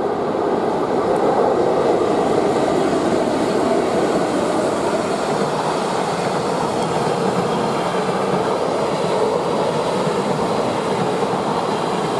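Container freight train running through, hauled by two Class 90 electric locomotives: loudest in the first second or two as the locomotives go by, then the steady rolling rumble of the container wagons' wheels on the rails.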